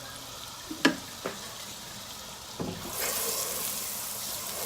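A few light knocks of a utensil against a pan, then about three seconds in butter hits the hot pan and starts sizzling steadily.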